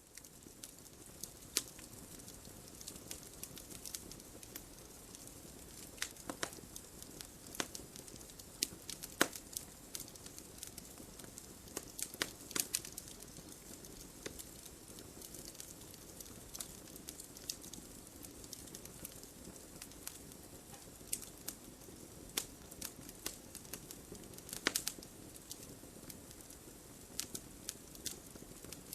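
Campfire burning: a steady soft hiss and low rumble of the flames with irregular sharp crackles and pops of the burning wood, a few much louder than the rest.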